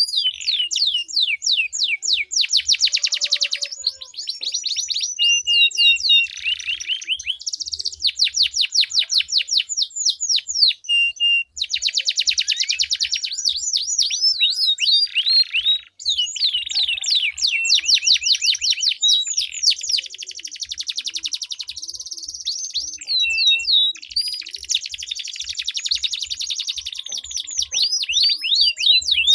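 Domestic canaries singing against each other in long rolling trills: fast runs of repeated high notes that change pattern every second or two, with only a couple of brief breaks.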